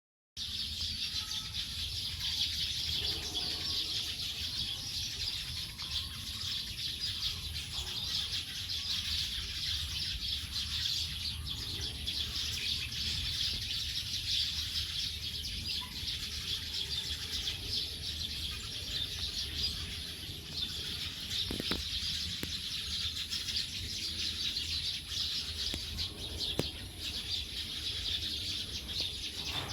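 A flock of many small birds chirping and twittering all at once as they settle to roost, a dense, unbroken high chatter.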